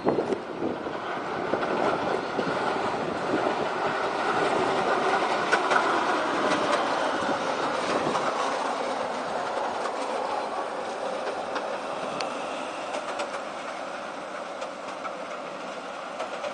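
Bombardier TVR guided tram, a rubber-tyred vehicle steered by a single central rail, passing close by. Its rolling rush swells to its loudest about halfway through and then eases off, with a few sharp clicks along the way.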